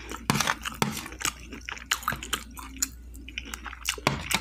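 A person chewing a mouthful of breakfast food up close to the microphone: a run of irregular wet mouth clicks and smacks.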